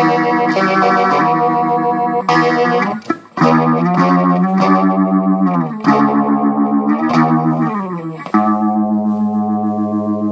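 Distorted guitar played through effects, holding sustained notes and chords that change in steps, with a rapidly wavering loudness. The sound drops out briefly about three seconds in.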